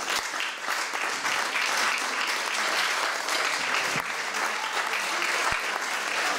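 Audience applauding: a small crowd clapping steadily, with dense hand claps, some of them close by.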